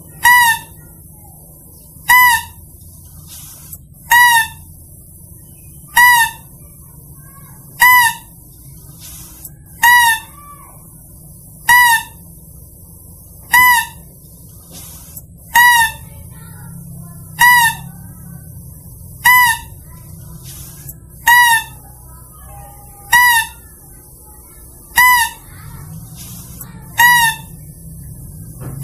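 Mouse-deer (kancil) lure call: a short, high call repeated in an even loop, about once every two seconds.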